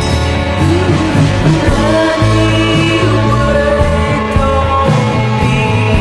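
A rock song playing: guitar and bass, with a voice singing.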